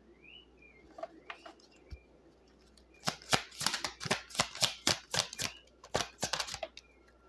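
Tarot cards being shuffled and handled: a dense run of quick, crisp card flicks and snaps, starting about three seconds in, after a few faint isolated clicks.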